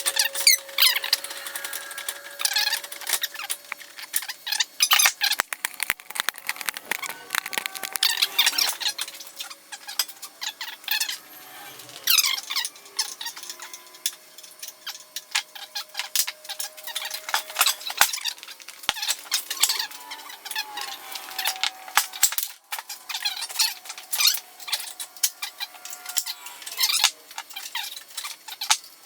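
Ratchet and socket clicking in quick runs while bolts are backed out to drop a mower's variator, with drawn-out metal squeaks as they turn.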